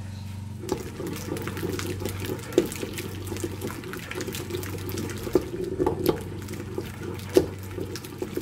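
Wooden pestle pounding and mashing soft tomatoes in a wooden mortar: continuous wet squelching with irregular strokes, starting about a second in. A few sharper knocks stand out as the loudest sounds.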